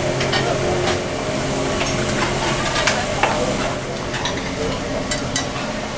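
Buffet restaurant ambience: a steady hiss and hum with about ten scattered clinks of plates and serving utensils.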